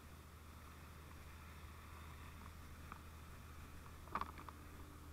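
Faint, steady rushing of a fire hose's fog stream spraying water, with a few light clicks about four seconds in.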